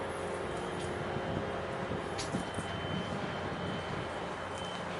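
Steady low droning hum and rumble from a large HMM Nuri-class container ship's engines and machinery as it passes, with a faint high whine in the middle.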